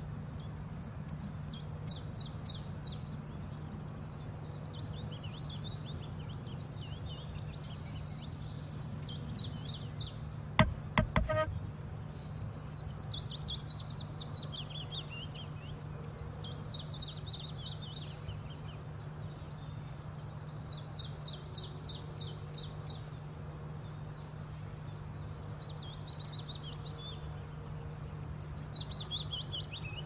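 Small songbirds chirping and trilling in quick high runs, some falling in pitch, over a steady low hum. A brief cluster of sharp knocks about ten seconds in is the loudest sound.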